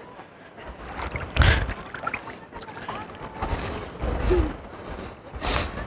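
Wind gusting on the microphone over the rush of sea water among shore rocks, with faint voices in the background. The gusts come in surges about a second and a half in, around four seconds in, and near the end.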